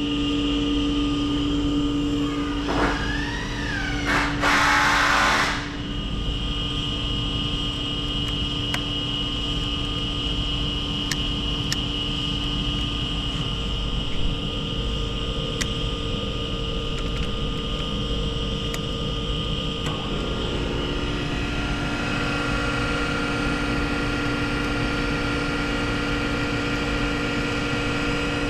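Chevalier FSG-618 manual surface grinder running with a steady hum from its 1 HP motor and spindle. A short hiss comes about four seconds in, and a high steady whine sounds from about six seconds to about twenty seconds in.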